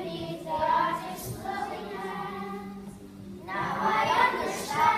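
A group of primary-school children singing together as a choir, getting louder near the end.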